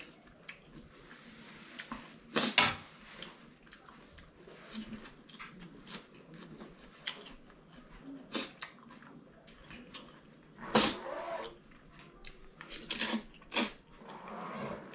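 A person slurping and chewing spicy instant noodles: short, sharp wet slurps and mouth sounds at irregular intervals, the loudest about two and a half seconds in and a cluster of louder slurps near the end.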